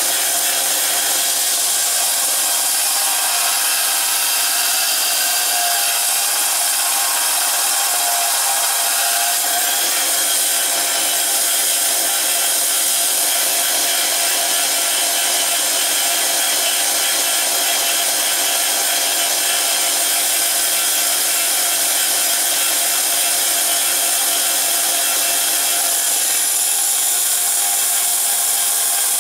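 Electric bench belt sander running steadily while a steel knife blade is ground against its abrasive belt to shape the bevels.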